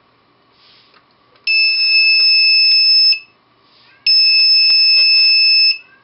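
The learning board's electronic buzzer sounds two steady, high-pitched beeps of about 1.7 seconds each. The first starts about a second and a half in, and the second follows about a second after the first ends. Each beep is one timed pulse from a 555 timer monostable, triggered when a magnet closes a reed switch.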